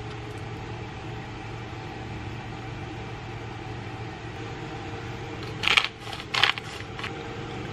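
Two short clatters of kitchen utensils or dishware, about half a second apart, a little past the middle, over a steady low kitchen-appliance hum.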